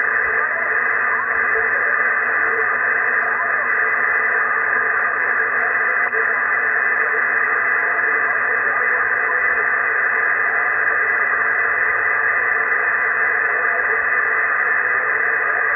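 Shortwave radio receiver static: a steady, loud hiss squeezed into a narrow voice band, with faint wavering tones under it.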